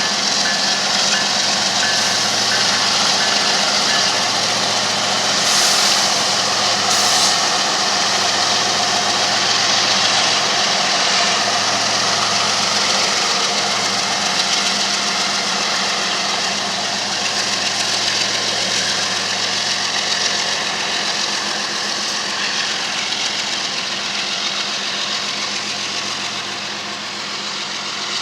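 CSX GE ES44AC and ES40DC diesel locomotives running under power, pulling an intermodal train out of the yard: a loud, steady engine drone mixed with the noise of the train rolling by, easing a little near the end.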